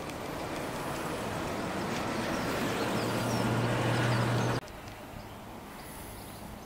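Noise of an unseen vehicle growing steadily louder over about four seconds, with a low hum building near the end, cut off abruptly by an edit; quieter outdoor background follows.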